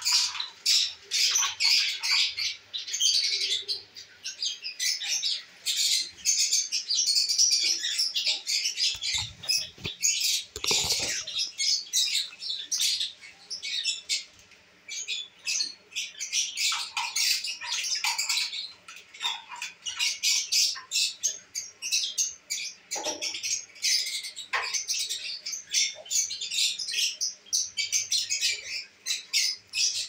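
Several lovebirds chattering, with rapid, high-pitched chirps and squawks running on without pause. A couple of dull knocks come about nine to eleven seconds in.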